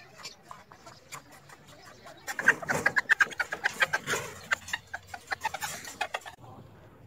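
Chickens pecking chopped tomatoes from a plastic bowl, a rapid run of sharp taps mixed with short clucks, starting a couple of seconds in and easing off near the end. Before that come faint taps of a knife slicing tomatoes on a plastic cutting board.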